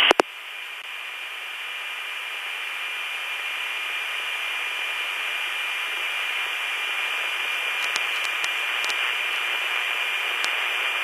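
Steady hiss of an open radio/intercom channel, narrow like a radio voice band, with a faint steady high tone running through it. It swells gradually over the first few seconds, with a few faint clicks later on.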